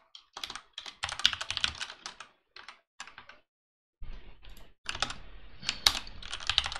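Typing on a computer keyboard: quick runs of keystrokes, a short pause a little past halfway, then more rapid typing with one louder key strike near the end.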